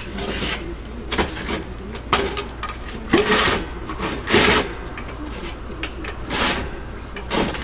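A series of short scraping and rubbing strokes, about eight at irregular intervals, from hands working with a tool or object, over a steady low hum.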